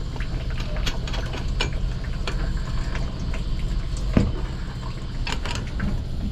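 Scattered metal clinks and knocks from a wrench with a steel pipe slipped over it as leverage, turning a stuck threaded valve fitting, with one louder knock about four seconds in. A steady low hum runs underneath.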